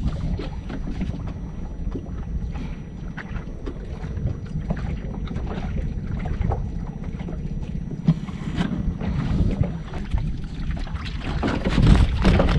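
Wind buffeting the microphone aboard a small fishing boat, a rough rumble with scattered small knocks. It grows louder near the end.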